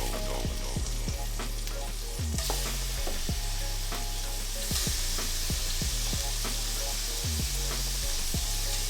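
Food sizzling as it fries in a hot pan, the sizzle growing louder about two and a half seconds in and again near five seconds. Background music with a steady beat plays underneath.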